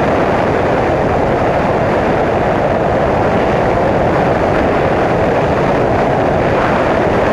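Bristell NG5 light-sport aircraft in flight: its engine and the rush of air past an outside-mounted camera make a loud, steady noise with no clear engine pitch.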